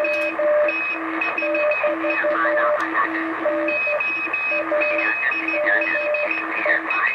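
Morse code (CW) signals from a National NC-303 shortwave receiver on the crowded 40-metre band. Several stations key at once at different pitches, over wavering interference and static.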